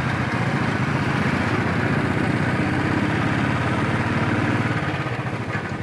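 Royal Enfield Bullet's single-cylinder four-stroke engine running at a steady road speed under the rider, its exhaust a fast, even pulse, easing off slightly near the end.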